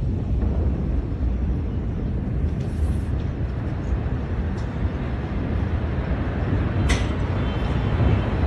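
Steady low rumbling noise, heaviest in the bass, with a single sharp knock about seven seconds in.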